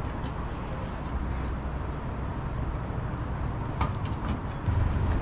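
Steady low background rumble, with one faint click about four seconds in.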